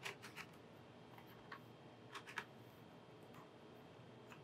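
Small Phillips #0 screwdriver working tiny M2 screws out of a netbook's case, giving a few faint, sharp clicks: a quick cluster at the start, one about a second and a half in, and two close together a little after two seconds.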